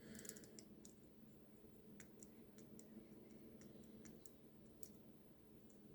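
Faint, scattered light clicks of a dimple pick and tensioner working the pins inside an ABUS dimple cylinder lock.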